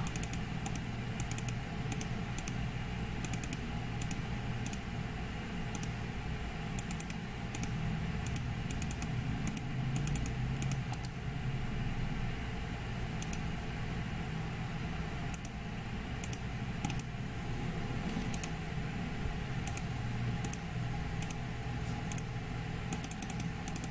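Computer keyboard being typed on in short, irregular runs of keystrokes, over a steady low hum.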